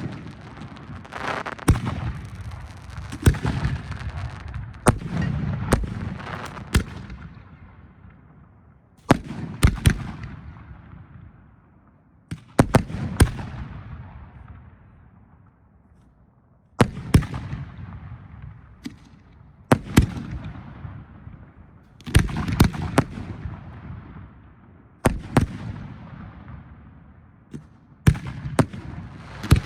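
Professional aerial fireworks shells bursting in quick groups, each sharp bang followed by a rumbling echo that fades away over a second or two.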